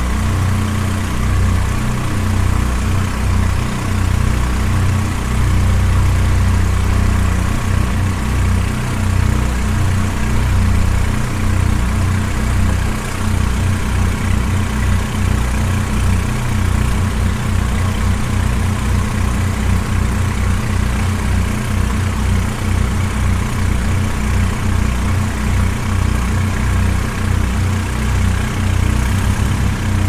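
Small boat's outboard motor running steadily under way, a constant low engine note that does not change in pitch or level.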